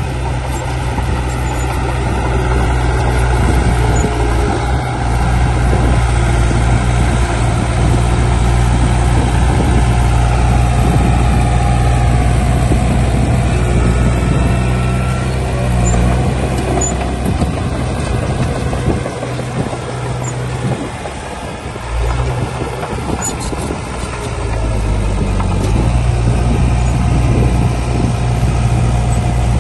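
Heavy diesel construction machinery running under load, a deep steady engine note that eases off briefly about twenty seconds in before picking up again.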